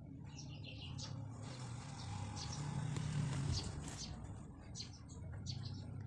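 Small birds chirping in short, repeated high calls, with a broad rushing noise that swells and fades around the middle, loudest about three seconds in.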